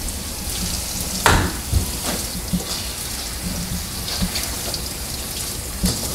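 Kitchen faucet running a steady stream of water into a silicone collapsible colander over a stainless-steel sink, spattering like rain. There is one sharp knock about a second in and a smaller one near the end.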